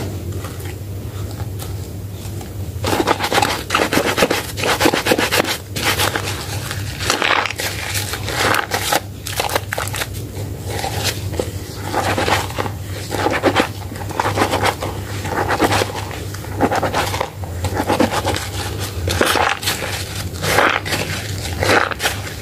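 Hands squeezing and mashing soaked Medicare White bar soap in thick lather, making wet, crackly squishes. The squishes are soft at first, then from about three seconds in come loud and repeated, one or two a second.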